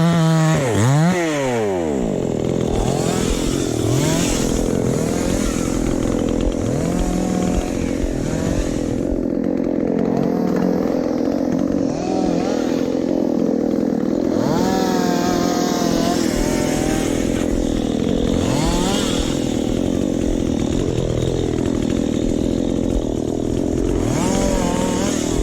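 Chainsaw running continuously, revving up and down in the first couple of seconds and again near the end, and running steadily in between.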